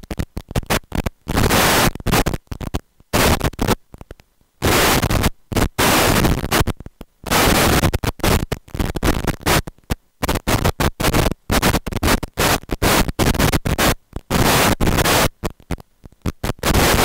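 Loud, harsh static noise that cuts in and out irregularly, in bursts from a split second to about a second long, with short silent gaps between.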